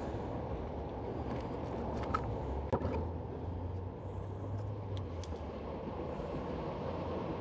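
Steady low rumble of traffic crossing the bridge overhead, with a sharp click about three seconds in.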